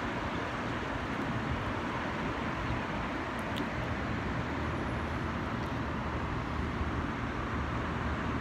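Steady wash of city road traffic, cars running on the multi-lane road below.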